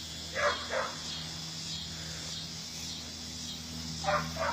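Insects chirring in a steady, high-pitched chorus that swells and fades slowly, over a low steady hum. Two pairs of short scuffs break in, about half a second in and again near the end.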